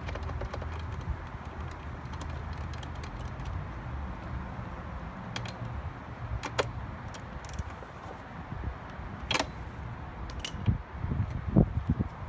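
25 cc two-stroke leaf blower engine idling low and steady, with several sharp metallic clicks and taps from a hand tool being worked on the blower's handle, and a few louder knocks near the end.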